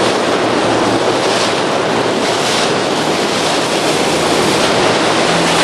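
Steady rush of moving water mixed with wind buffeting the microphone, an even hiss with no pitch or rhythm.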